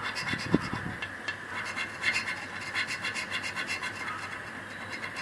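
A coin scratching the coating off an instant lottery scratch card in quick back-and-forth strokes, several a second.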